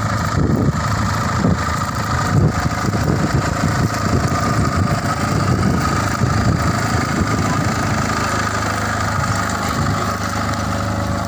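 Captain mini tractor's diesel engine running steadily under load as it pulls a triple plough through dry soil.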